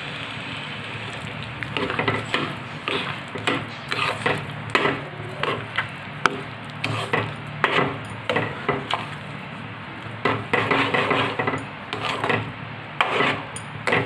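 A spoon or spatula scraping and stirring thick wheat-flour and besan halwa in a cooking pan. It makes repeated short scraping strokes, starting about two seconds in.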